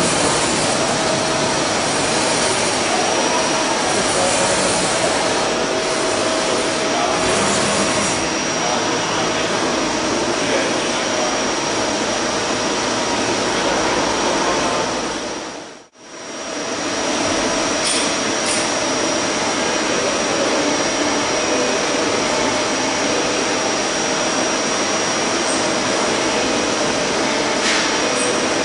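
CNC horizontal boring mill running a turning cut on a steel workpiece: a steady machine whir and hiss with a steady high whine through it. The sound fades out and back in about halfway through.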